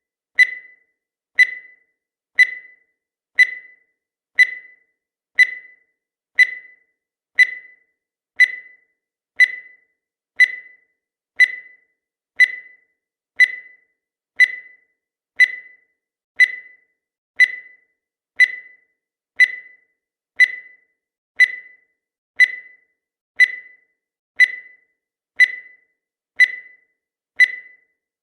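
Countdown timer sound effect: a short, high electronic beep once every second, each fading away quickly.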